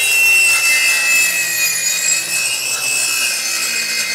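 Corded circular saw making a long cut through a wide sheet panel, its motor whining steadily under load.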